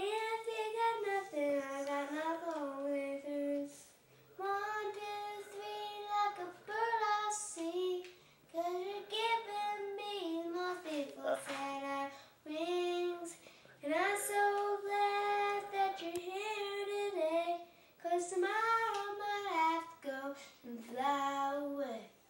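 A young girl singing a song alone without accompaniment, in phrases of held notes that step and slide in pitch, with short pauses for breath between them.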